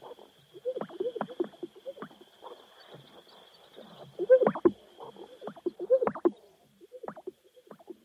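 Sage-grouse calling: clusters of short, low pops and gulping notes, repeated every second or two.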